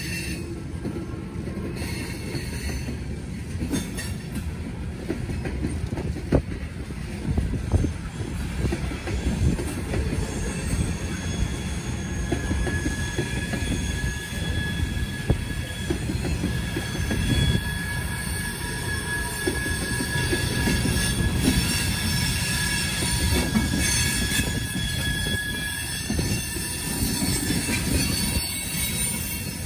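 Freight cars of a Norfolk Southern grain train rolling past with a steady low rumble. Wheel flanges squeal in thin high tones that come and go, and couplers and car bodies clank now and then.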